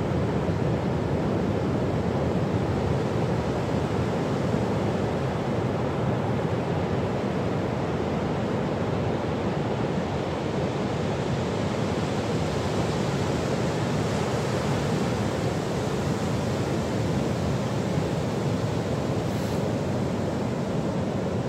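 Steady rush of ocean surf breaking on a sandy beach, an even roar of white water with no single wave standing out.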